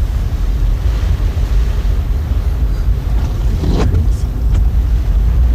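Car driving slowly through floodwater: a steady low rumble with wind on the microphone, and a brief louder rush of water about four seconds in.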